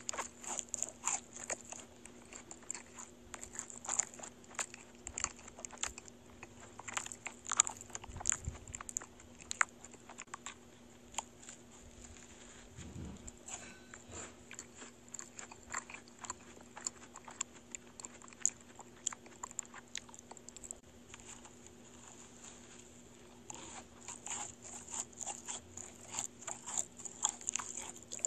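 Close-miked eating of large character macarons: crisp shells crunching under the teeth in many sharp crackles, with chewing. The crunching is densest in the first ten seconds and again near the end, with softer chewing in between.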